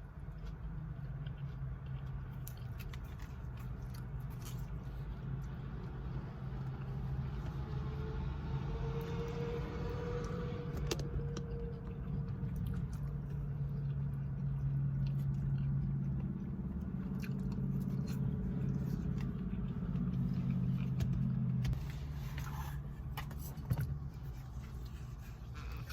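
Close-up chewing and biting of food, small wet clicks and crunches, over a steady low hum that stops suddenly about 22 seconds in.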